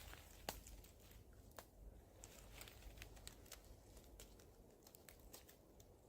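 Near silence: a faint low rumble with scattered small clicks and crackles, the sharpest about half a second in.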